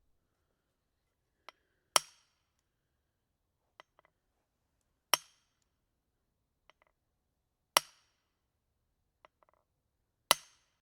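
A maul striking a wedge four times, evenly about every two and a half to three seconds, each blow a sharp hit with a brief ringing tail. Fainter light taps come shortly before each blow.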